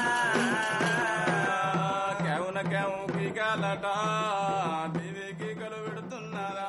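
Indian film song: a voice singing long, wavering notes over a steady drum beat, getting somewhat quieter about five seconds in.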